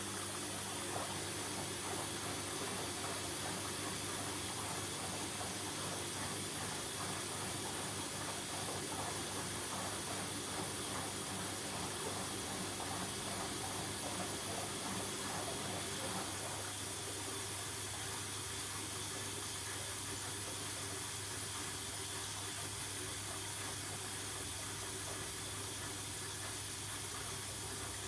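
Hoover H-Wash 300 washing machine taking in water, a steady hiss of water flowing through the inlet into the drum with a faint low hum underneath.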